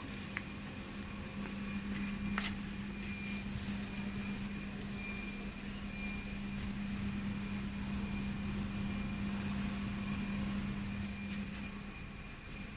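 CNC router running with a steady hum and a faint high whine, with one sharp click a little over two seconds in.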